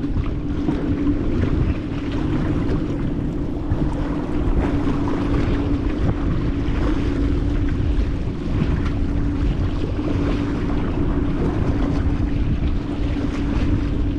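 Wind buffeting the microphone over the steady drone of a boat engine running in the channel.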